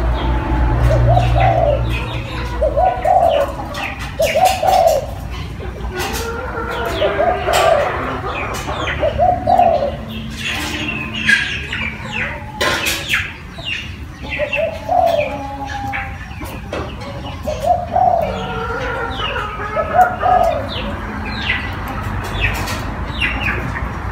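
Spotted doves cooing: a low, arched coo repeated every second or two, with small birds chirping higher up.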